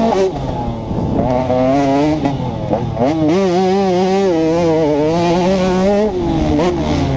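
2011 KTM 150 XC's two-stroke single-cylinder engine revving under hard throttle. Its pitch climbs sharply at the start and sags over the next second or two. It rises again and holds high with a slight wobble, then drops near the end.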